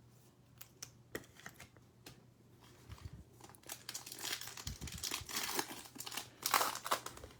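A trading-card pack wrapper being torn open and crinkled by hand, after a few seconds of light clicks from cards being handled. The crinkling builds about halfway through and is loudest near the end.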